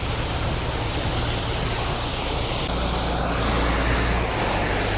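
Narrowboat diesel engine running steadily at low revs, its note shifting slightly about three seconds in, over a steady hiss.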